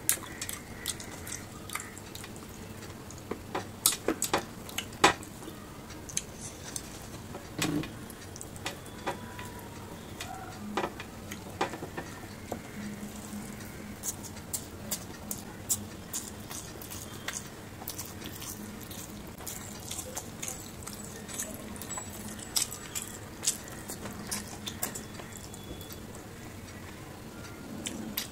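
Close-up eating sounds: wet chewing, lip smacks and sharp wet clicks as a man eats rice and fish curry with his fingers.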